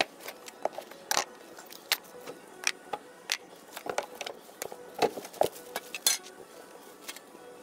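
Drift trike parts being unpacked from a cardboard box: a string of knocks and clatters as wheels and parts are lifted out and set down, with crinkling plastic wrap.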